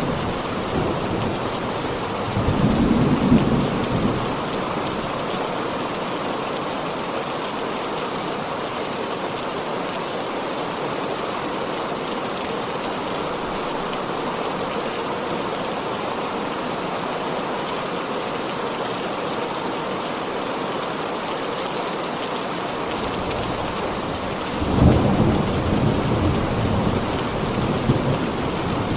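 Heavy rain falling steadily, with thunder rumbling about two to four seconds in and again over the last few seconds.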